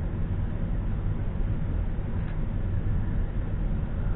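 Steady low background rumble, with one faint click about two seconds in.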